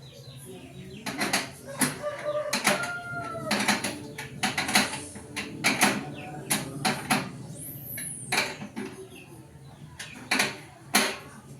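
Repeated sharp metallic clanks and knocks, irregular and close together, of sewing-machine stand parts being handled and fitted together.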